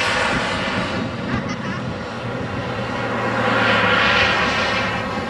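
Frank model jet turbine of a large scale RC Lockheed U-2 running in flight, a steady rushing jet whine that swells louder about four seconds in as the model passes.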